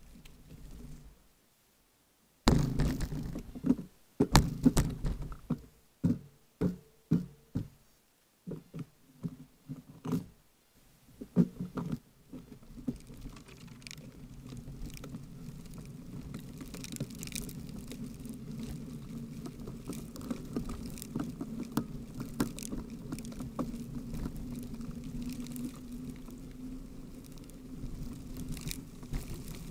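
Bicycle riding over a rough, potholed road heard through the bike-mounted camera: a run of loud knocks and jolts for about the first ten seconds, then a steady low rumble of tyres on wet asphalt with light rattles.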